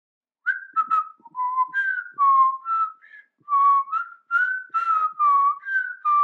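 A person whistling a short tune: a string of about a dozen separate notes with small slides between them, starting about half a second in.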